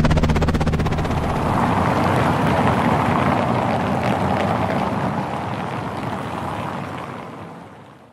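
Helicopter sound effect: rotor chop and engine hum fading into a rushing noise as the helicopter flies away, dying out near the end.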